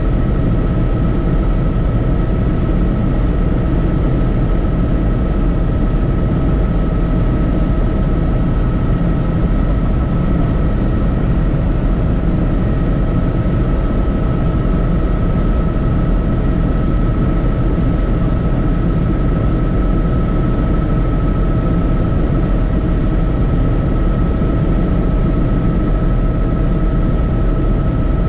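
Helicopter in steady flight: a constant heavy rotor and engine rumble with a steady high whine over it, unchanging throughout.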